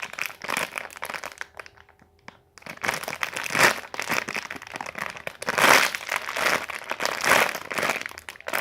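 Plastic packaging crinkling in irregular bursts as a squishy toy is handled and squeezed, with a short pause about two seconds in.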